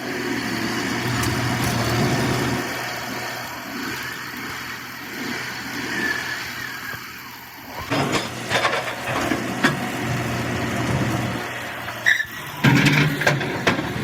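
Heavy vehicle engine running steadily, then from about eight seconds in a string of loud knocks and clatters over the engine noise.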